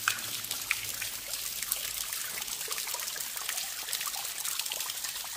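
Water seeping through a tunnel's brick and stone lining, running down the wall and splashing onto the floor: a steady trickle with many scattered drips.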